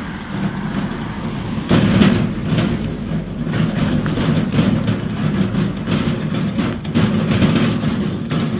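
A car driving past on the road, its engine and tyre noise swelling about two seconds in, over a steady low rumble.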